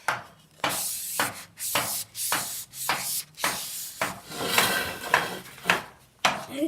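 Sandpaper rubbed back and forth on metal scooter handlebars in repeated short strokes, roughly two a second.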